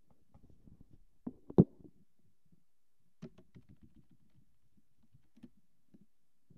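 Quiet room with a few scattered clicks and knocks; the loudest, a sharp knock, comes about a second and a half in, with fainter ticks later.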